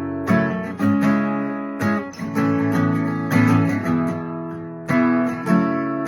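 Acoustic guitar playing a song's intro: chords struck about once or twice a second, each ringing out and fading before the next.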